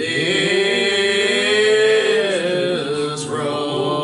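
Hymn sung unaccompanied by a church congregation in a very slow, drawn-out style, each syllable held for several seconds. The voices come in together after a brief breath and slide to new notes about two and three seconds in.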